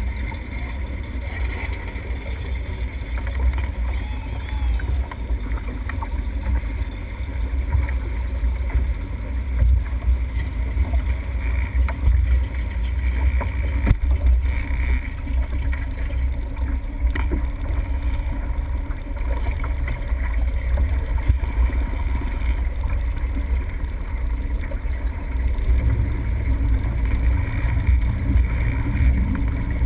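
Motorboat running on the water: a steady low engine rumble mixed with the rush of water and wind on the microphone. The rumble grows a little louder near the end.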